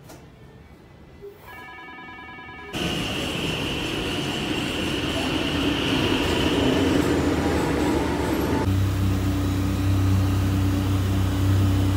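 A SkyTrain car sweeping past the platform with a rushing noise and a high steady whine. Then a steady low engine drone aboard a small Aquabus ferry.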